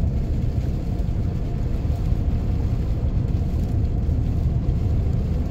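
Steady low road rumble heard inside a car's cabin as it drives at about 40 mph on a snow-covered highway, its tyres and engine running evenly.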